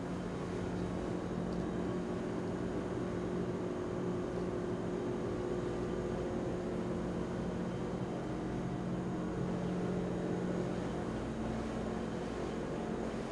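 Steady mechanical drone of a running motor, with a constant low hum whose main tone steps up slightly near the end.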